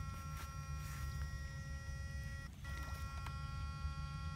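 Backpack electrofishing unit's inverter giving a steady electric whine of several high tones while its bamboo-pole electrodes are live in the water. The whine cuts out for a moment about two and a half seconds in and comes straight back, over a low rumble.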